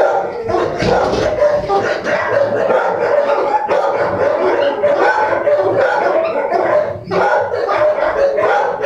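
Dogs in a shelter kennel barking and yelping over one another, a loud, continuous din with no pauses.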